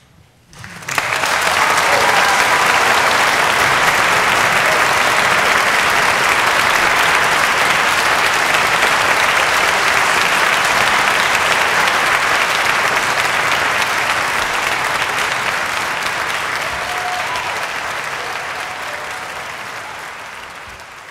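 Audience applause that starts suddenly about a second in, holds steady, and slowly dies down near the end.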